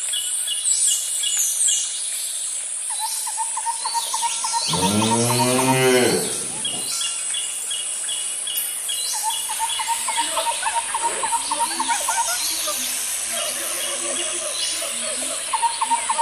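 A cow moos once, a single low call of about two seconds a few seconds in. Behind it runs a steady bed of insects buzzing and trilling, with birds chirping in short repeated notes.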